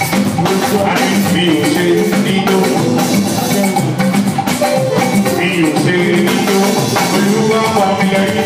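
Live band music playing continuously, with drums and percussion keeping a steady beat under a sustained bass line.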